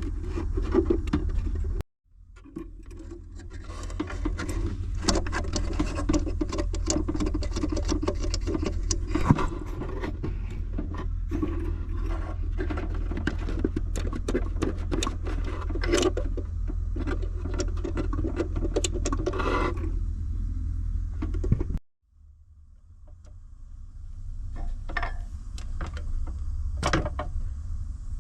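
Clicks, taps and scraping of small clock parts being handled during disassembly, over a steady low hum. The sound cuts out abruptly twice, about two seconds in and about twenty-two seconds in.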